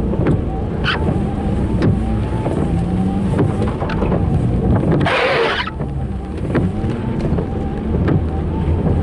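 Car driving, heard from inside the cabin: steady engine and road rumble, with one brief loud hiss about five seconds in.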